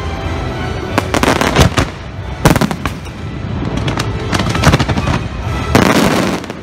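Fireworks going off in volleys of sharp bangs and crackles, a new cluster every second or so, the longest near the end.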